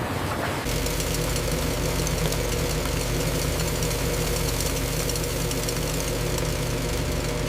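Factory machine running steadily with a low hum and fast fine ticking, starting up about a second in after a single knock.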